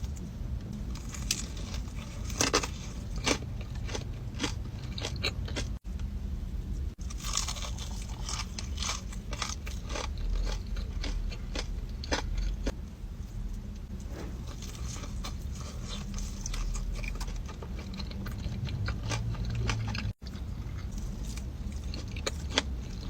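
Close-miked crunchy eating: repeated crisp bites and chewing, many short crackling crunches in quick succession.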